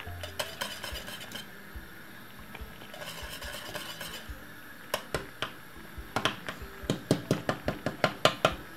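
Wire whisk stirring thick cornmeal porridge in a stainless steel pot: soft scraping at first, then the whisk clicking against the metal pot, the clicks coming faster and louder, about four a second, over the last couple of seconds.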